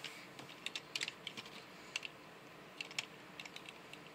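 Irregular small clicks and taps of hard plastic parts of a transforming action figure being folded, rotated and tabbed together by hand, some in quick little runs.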